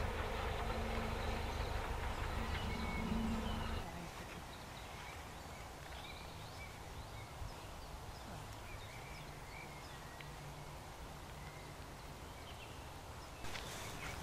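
A distant steam-hauled train running past: a low rumble with a steady low tone, which cuts off abruptly about four seconds in. Quiet countryside follows, with faint birdsong and a brief burst of noise near the end.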